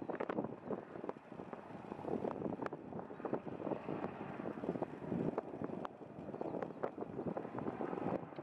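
Rotor and engine noise of a UH-60 Black Hawk helicopter flying overhead, mixed with wind buffeting the microphone in uneven gusts.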